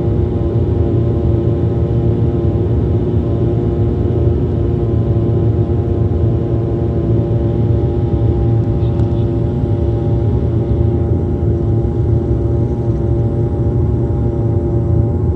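Steady drone of an airliner's engines heard from inside the passenger cabin: a low rumble with a constant hum of several tones over it.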